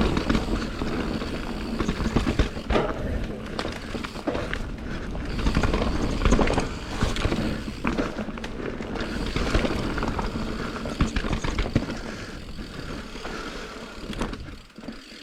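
Santa Cruz Nomad full-suspension mountain bike ridden down a dirt trail: a steady rush of tyre noise with frequent knocks and rattles over bumps, easing slightly near the end.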